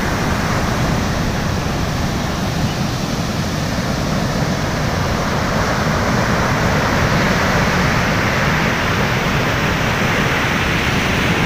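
Ocean surf breaking on a beach: a continuous rush of waves with a low rumble underneath.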